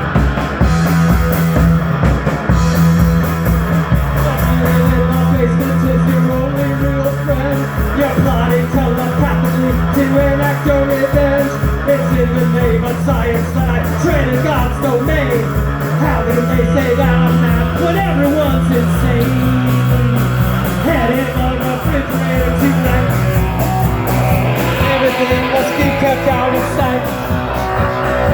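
Rock band playing a loud passage without recognisable lyrics: a steady drum beat under a bass line that steps between notes, with busier guitar or vocal lines above.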